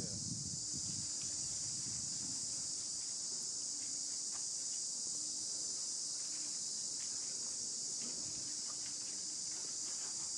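Steady, unbroken high-pitched drone of an insect chorus, with a few faint ticks and a brief low rumble near the start.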